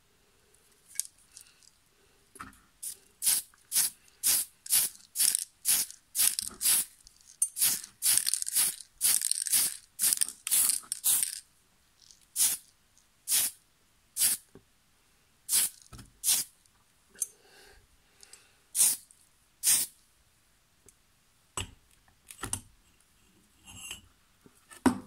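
Aerosol can of surface primer spraying in short hissing bursts, many in quick succession at first and then single bursts about a second apart, as a primer coat goes onto a small diecast model car.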